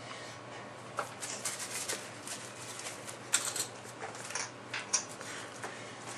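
Small objects being handled on a wooden coffee table: irregular light clicks and rustles.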